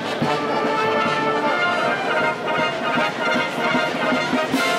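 A Guards military band playing brass music live, with full held brass chords and a louder accent shortly before the end.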